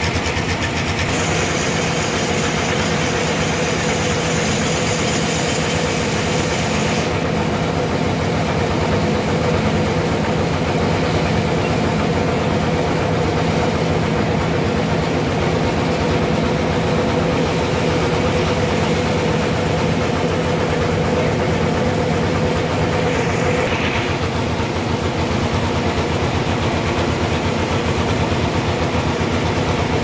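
Stationary engine driving a homemade band sawmill, running steadily. A high hiss rides over it for the first several seconds and stops about seven seconds in.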